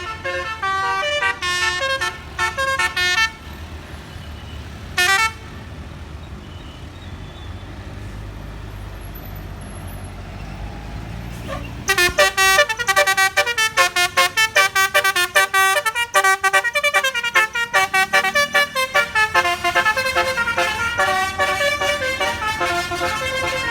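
Telolet basuri bus air horns playing quick melodic runs of short notes. There is a burst in the first three seconds, a single short blast at about five seconds, then a long, fast run from about twelve seconds in to the end. A bus engine rumbles underneath in between.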